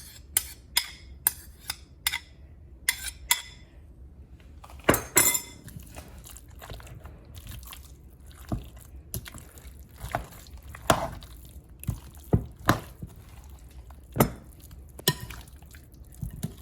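Beaten egg being added to a bowl of marinating chicken wings, with a utensil tapping quickly against the bowl, then the wet marinade being mixed through the chicken with scattered clinks against the bowl.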